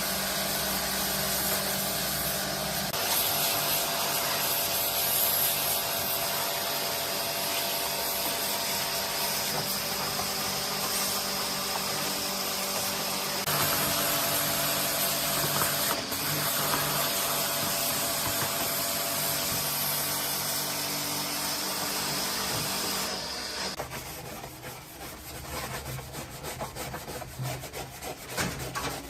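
A power tool running under load against a surface, a steady hum under a dense abrasive rasping, as in sanding or grinding off rust. About 23 seconds in it stops, and lighter, irregular scraping and rubbing carries on.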